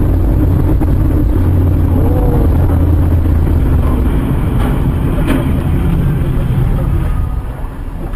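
Car driving: a steady, loud low rumble of engine and road noise that eases off near the end.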